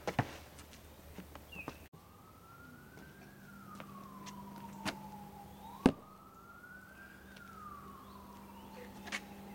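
A siren wailing, its pitch rising and falling slowly about every four seconds, starting abruptly about two seconds in. A single sharp click about six seconds in is the loudest sound.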